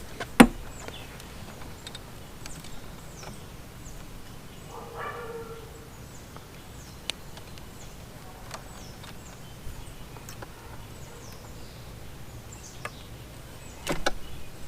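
Sparse light clicks and taps of hand work on wiring, with one sharp click just after the start and a few more near the end. Faint bird chirps can be heard in the background.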